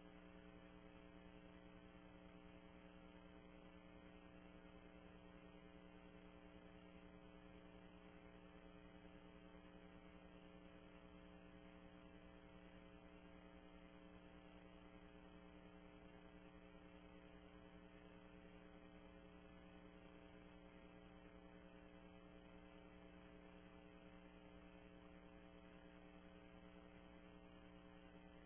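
Near silence with only a faint, steady electrical hum and light hiss that does not change.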